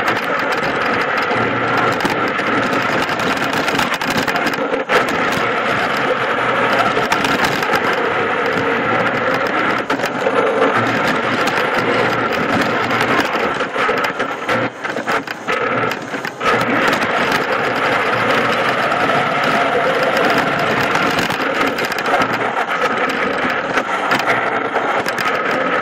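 Electric drive train of a FIRST robotics competition robot running as the robot drives across a tiled floor, heard from on board: a steady motor whine over a dense mechanical running noise. It eases off briefly a couple of times past the middle, as the robot slows or turns.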